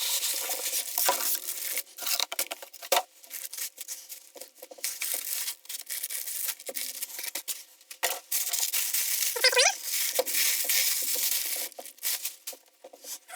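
Cardboard box and packing material being opened and handled: steady rustling, rubbing and crinkling with small knocks, and a short squeak about nine and a half seconds in.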